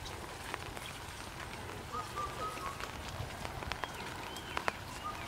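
Steady rain falling on open water and leaves, with scattered sharp drips. A short chirping call sounds about two seconds in and again at the end.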